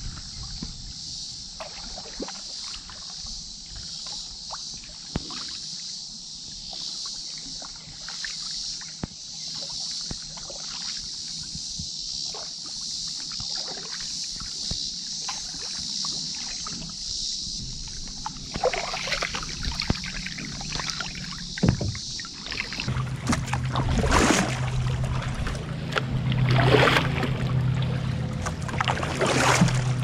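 Canoe paddle strokes dipping and splashing in lake water, over a steady high-pitched drone of insects that stops abruptly about two-thirds of the way through. After that the splashing gets louder, and a low steady hum comes in.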